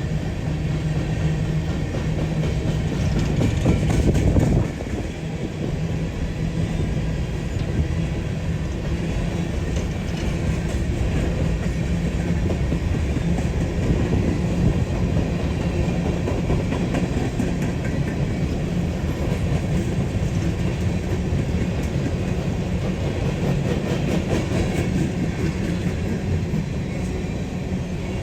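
Loaded coal train passing: diesel locomotive engine sound in the first few seconds, loudest about four seconds in and then suddenly dropping away, followed by the cars rolling steadily by with a clickety-clack of wheels over the rail joints.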